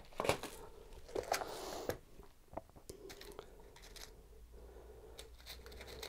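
Faint handling noises: a scattering of small clicks and short rustles as hands handle small electronic parts, a switch with crimped spade connectors and, near the end, a plastic compartment box of crimp terminals.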